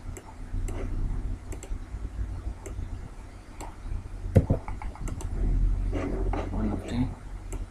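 Scattered computer keyboard and mouse clicks, the sharpest about halfway through, over a low steady hum.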